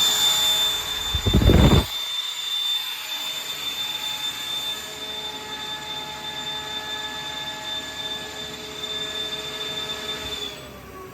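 Grassair RollAir 30 V rotary screw air compressor running with a steady high whine. About a second and a half in there is a brief loud burst, after which it runs more quietly, and near the end the whine stops and the machine winds down with falling tones.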